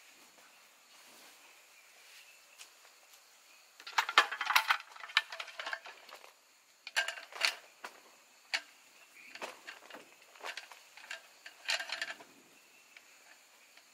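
Clattering and rattling of a small folding metal camp table being set up: the X-frame legs opened and the tabletop fitted on, in several bursts of knocks and jangles, the loudest about four seconds in.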